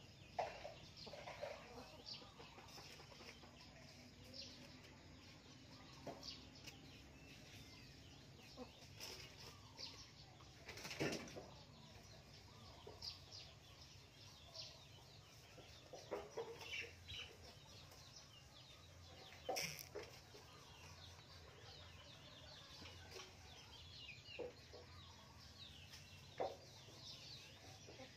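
Faint, sparse outdoor background: occasional distant hen clucking and scattered soft clicks and rustles, with two slightly louder rustling clicks partway through.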